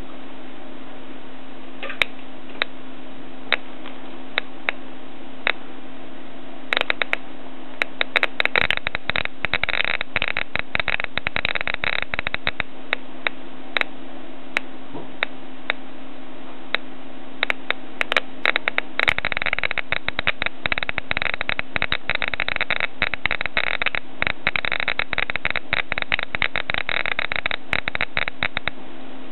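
Homemade Geiger counter with a 1960 Philips ZP1600 tube clicking through its loudspeaker over a steady hum and hiss. The clicks come about once a second at first, then crowd into fast irregular runs in two stretches, about a quarter of the way in and again from about two-thirds on: the count rising from the radioactive thorium nitrate in a Petromax lantern mantle held by the tube.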